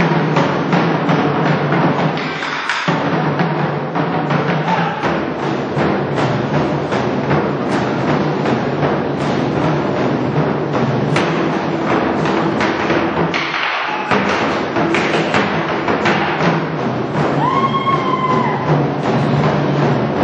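Korean drumming ensemble playing live: fast, dense drum strokes without a break. A short held pitched tone sounds over the drums near the end.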